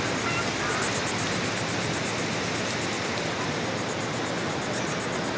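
Steady, even rushing noise with no distinct events: an open-air hiss of the kind that surf and wind make on a phone microphone.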